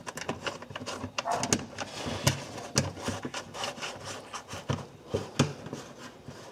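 Plastic splash shield being pushed and worked into place by hand under a car's wheel well: irregular light clicks, knocks and scraping rubs as the plastic shifts against the body.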